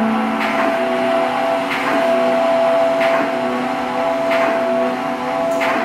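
Sound-installation drone played through speakers: several held tones layered and sustained, with a soft swish recurring about every second and a quarter.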